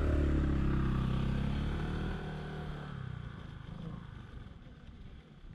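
Motorcycle engine running as the bike pulls away up a dirt road, its sound loud at first and fading away into the distance over the following few seconds.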